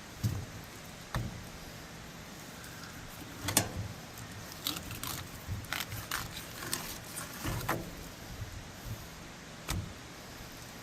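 Irregular knocks, taps and clicks of a knife and trout being worked on a board during fish cleaning, over a faint steady hiss; the loudest knock comes a little past a third of the way in, with a run of lighter taps after it.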